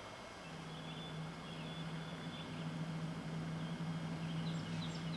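A steady low hum comes in about half a second in and slowly grows louder, with faint bird chirps over it.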